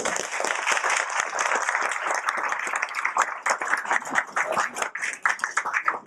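Audience applauding: a dense clatter of many hands clapping that starts suddenly and thins to scattered separate claps near the end.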